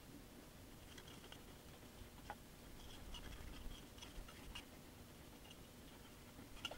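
Faint, light tapping of a paint sponge dabbing brick colour onto a plastic model building wall: a few soft, scattered taps over near silence.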